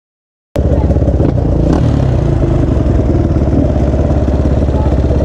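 Dirt bike engine idling, loud and close, with a fast, even pulsing that holds steady in pitch. It starts abruptly about half a second in.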